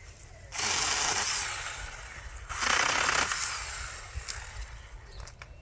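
Battery-powered 4-inch mini chainsaw cutting into a tree trunk in two bursts. The first starts about half a second in and the second near three seconds, and each fades off.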